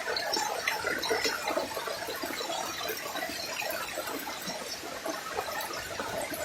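Running water trickling and burbling, with many small irregular splashes and gurgles.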